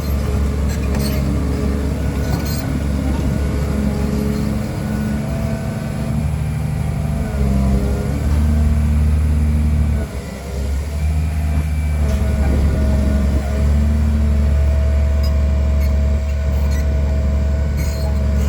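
Caterpillar 336D2 excavator's diesel engine running steadily while the machine tracks, with a steady whine over the low rumble. The sound drops briefly about halfway through, then picks up again.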